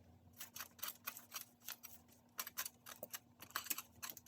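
Tint brush working hair dye into synthetic-free wig hair: quick, irregular scratchy strokes, several a second.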